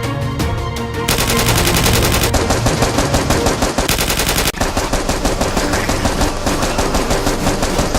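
Rapid automatic gunfire, a dense run of shots that starts about a second in and goes on without a break, as dubbed onto a Nerf action film.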